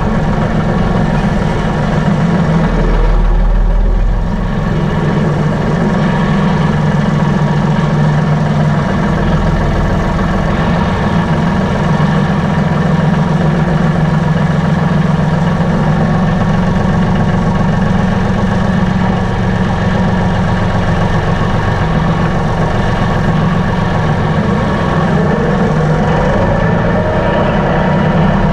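Vehicle engine running steadily at close range, a continuous low hum with a slight dip about four seconds in.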